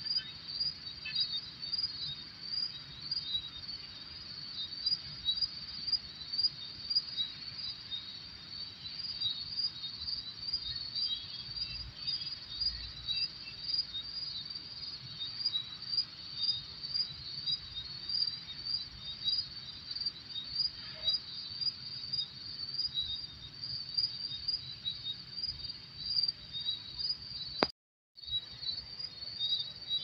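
Night crickets chirping in a rapid, even, continuous rhythm, with the sound cutting out for a moment near the end.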